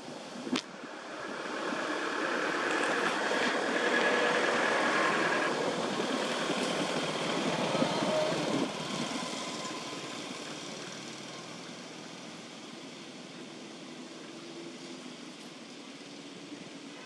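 A vehicle engine passing: the noise swells over the first few seconds, is loudest from about four to eight seconds in, then fades away to a quieter steady background. A single sharp click comes just after the start.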